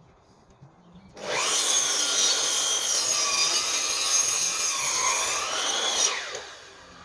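A Makita sliding mitre saw starts about a second in and cuts through a timber sleeper. Its motor whine sags in pitch under load late in the cut and then recovers. Near the end it is switched off and winds down in falling pitch.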